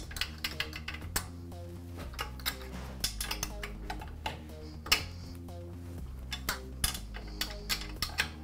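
Steel open-end wrench clinking against the fitting of a new air-compressor pressure gauge as it is tightened into the tank, in irregular short metallic clicks; the loudest comes about five seconds in.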